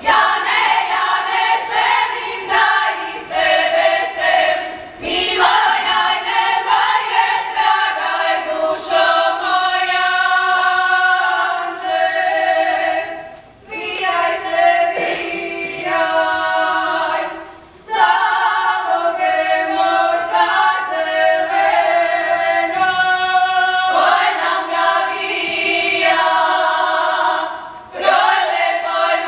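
Women's choir singing an unaccompanied Croatian Posavina folk song, in phrases separated by short pauses.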